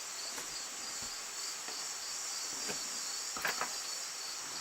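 Crickets chirping steadily in the background, with a few light clicks of small metal lock parts being handled about three and a half seconds in.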